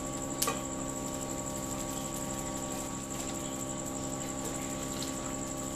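Crickets chirring steadily, high-pitched, over a steady low hum, with a single click about half a second in.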